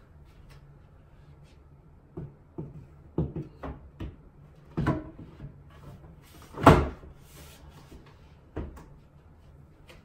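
Painted wooden shutter frame knocking and bumping against the window opening as it is fitted into place: a string of separate knocks, the loudest a little past halfway.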